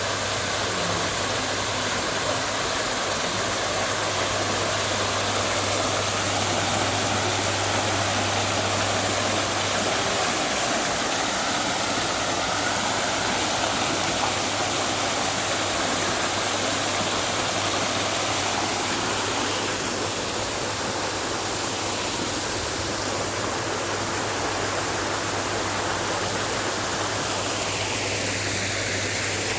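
Waterfall's rushing water, a steady loud noise, with a low steady hum underneath for the first third that then fades out.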